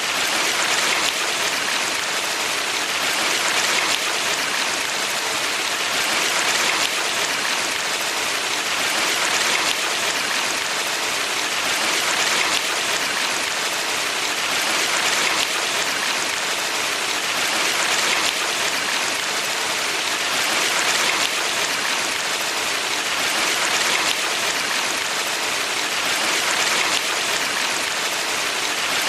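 Mountain valley stream: a steady rush of flowing water that swells gently about every three seconds.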